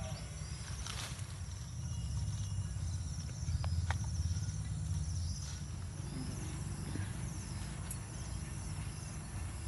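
Insects chirping in short repeated pulses, high-pitched, over a steady low rumble, with a few faint clicks.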